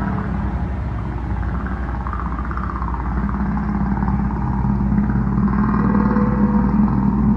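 A low, steady rumbling drone with a deep hum, slowly swelling and growing somewhat louder after about three seconds, a horror-film ambience effect.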